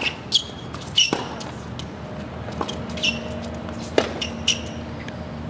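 A tennis rally on a hard court: sharp pops of a tennis ball struck by rackets and bouncing on the court, about one every second to a second and a half, beginning with a serve.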